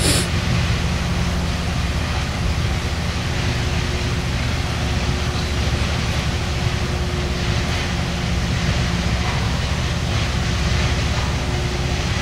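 Train running by: a steady rumble with a low engine hum throughout, after a brief sharp click at the very start.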